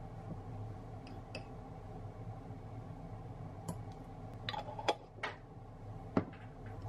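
A few light clinks and knocks of a fork and a glass jar of cornichons being handled on a counter, scattered through the second half with the sharpest near the end, over a steady low hum.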